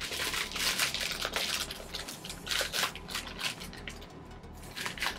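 Plastic sweet packet crinkling and crackling in irregular scratchy rustles as it is handled and pulled open, loudest in the first second or so.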